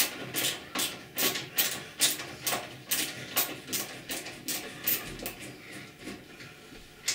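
Hand ratchet screwdriver clicking as it backs out a screw at the base of a washing machine's drain-pump housing, a short sharp click about two or three times a second.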